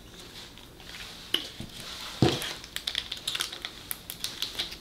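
Close-up eating sounds of chewing, with the crinkle and small crackles of a plastic sauce packet being handled and torn open. A quick run of small clicks fills the middle and later part, and there is one louder soft thump a little after two seconds.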